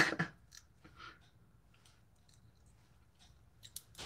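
Faint, scattered clicks and small crackles of boiled blue crab shell being picked apart by hand, with a brief louder burst of noise right at the start.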